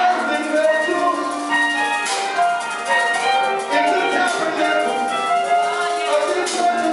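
Live gospel band playing: held keyboard chords over a drum kit, with a few cymbal hits.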